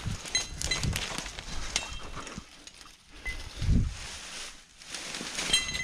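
Footsteps through dry leaves and brush, with several soft thuds, while metal trapping gear clinks lightly in short bright pings as it is carried.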